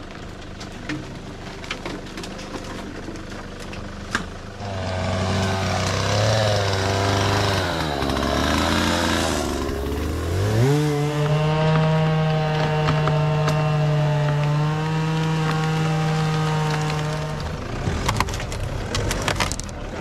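An engine run hard: its pitch sags under load, climbs sharply about ten seconds in, holds high and steady for several seconds, then drops away. Twigs and brush crackle and snap before it starts and again near the end.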